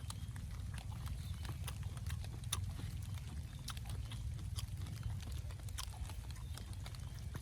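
Close-miked chewing and lip-smacking while eating: a run of irregular small clicks over a steady low rumble.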